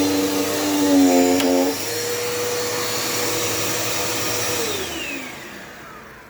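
Dirt Devil Power Max vacuum cleaner running with a steady hum that changes tone about two seconds in. Then it is switched off and winds down with a falling whine.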